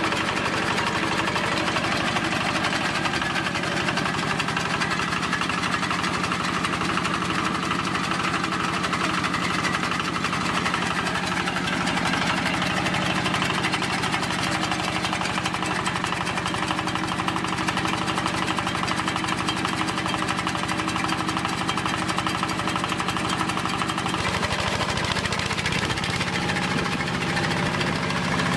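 Small single-cylinder diesel engine running steadily under load, driving a chaff cutter with a spinning flywheel that chops dry straw as it is fed in.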